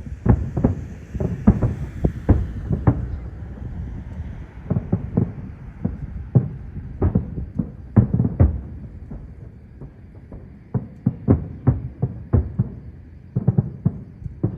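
Aerial fireworks shells bursting in an irregular barrage of deep booms and sharp cracks, several a second at times, with short pauses between clusters.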